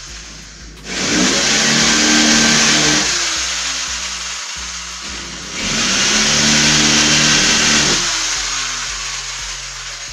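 A handheld electric power tool run twice: each time it spins up, runs for about two seconds with a loud hiss of work, then winds down in falling pitch.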